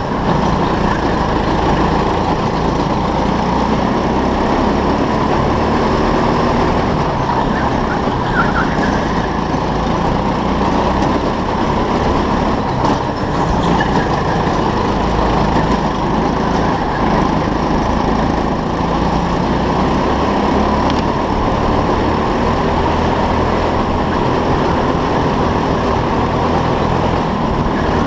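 Go-kart driving at speed around an indoor track, heard from a camera mounted on the kart: a loud, steady drone with slight shifts in pitch through the corners.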